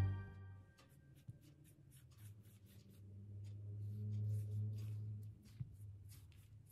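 Soft, scratchy rubbing and brushing strokes on rolled-out dough lying on a silicone baking mat, as a hand smooths it and melted butter is poured on and spread with a silicone pastry brush. A low hum runs underneath, swelling about midway.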